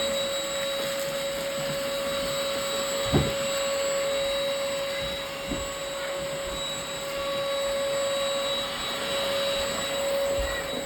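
INSE cordless stick vacuum running steadily, its motor giving a constant whine over a hiss of suction, with one brief knock about three seconds in.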